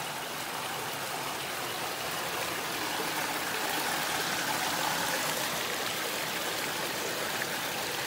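Small forest stream splashing steadily down a little cascade over rocks.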